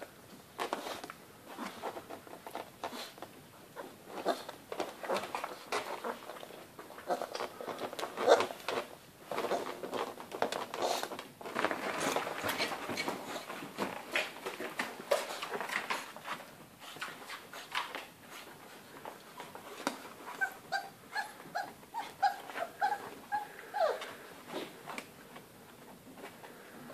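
A litter of four-week-old Great Dane puppies scuffling and play-fighting, with whimpers and sharp clicking and scrabbling throughout. About three-quarters through comes a quick run of short high yips, roughly three a second.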